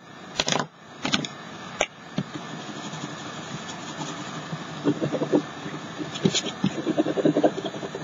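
Watercolor crayon scribbling on paper in quick back-and-forth strokes, in two spells near the middle and the end. A few sharp clicks in the first two seconds as one crayon is set down on the table and another picked up.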